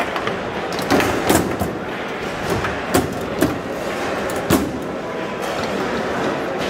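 Foosball table in play: irregular sharp clacks of the ball struck by the hard plastic players and of rods knocking, about six in a few seconds, over the steady murmur of a busy hall.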